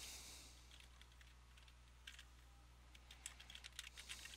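Faint typing on a computer keyboard, a password being entered: a few scattered key clicks, then a quicker run of them from about three seconds in.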